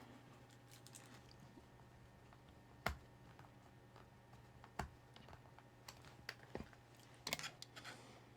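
A few sharp small clicks and taps, scattered irregularly, from a screwdriver and small model-kit parts being handled while two tiny screws are driven into the seat, over a faint low hum.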